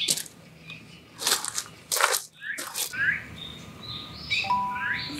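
A few short rustling, scuffing handling noises as a small dog is lifted out of a car, then birds chirping. Soft chime-like music tones come in near the end.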